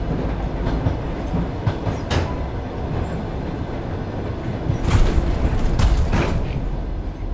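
Russian suburban electric train (elektrichka) moving, heard from inside a carriage: a steady low rumble with the clickety-clack of wheels over rail joints. A few sharper knocks come through, louder around five to six seconds in.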